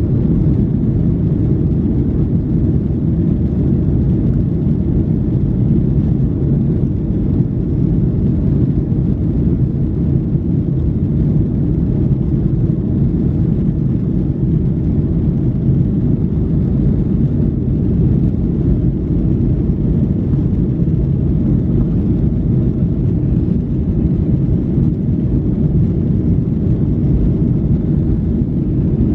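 Steady low cabin rumble of a Boeing 737-800 taxiing: its CFM56-7B engines at low thrust and the wheels rolling over the taxiway, heard from a window seat inside the cabin.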